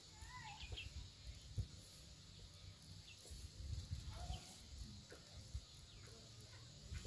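Faint outdoor ambience: scattered short bird calls and chirps, with irregular low thumps on the microphone.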